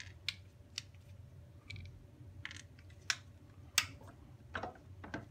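Scattered clicks and light knocks, about eight of them, as a 12 V sealed lead-acid battery is handled and set down into a hard plastic battery case; the loudest knock comes a little under four seconds in.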